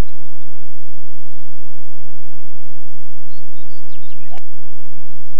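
Steady low hum and hiss with birds chirping briefly about three seconds in. Then a single sharp click about four seconds in as the golf club strikes the ball.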